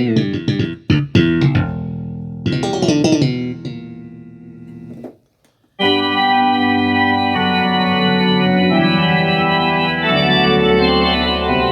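Korg M1 synthesizer preset sounds being played. First comes a struck, piano-like patch with quick notes and chords that fade away. After a short gap, about six seconds in, a sustained organ-like patch plays held chords.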